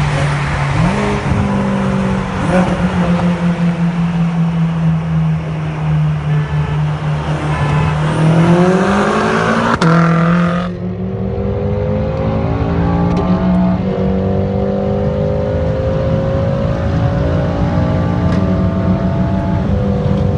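BMW M6 twin-turbo V8 engines pulling hard at highway speed, the revs climbing and dropping back at each upshift, with wind and road noise. The sound is heard from inside one of the cars as the two run side by side.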